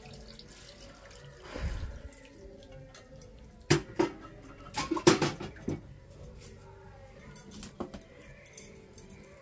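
Water poured from a metal mug into a steel kadai of raw fish and vegetables, followed by several sharp metallic clanks from the pan and mug being handled about four to six seconds in.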